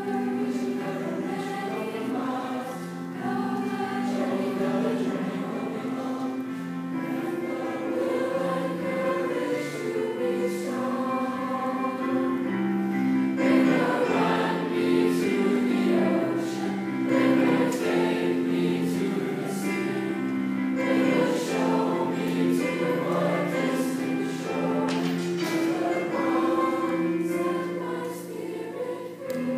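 Student choir singing in parts, holding long chords that change every second or two.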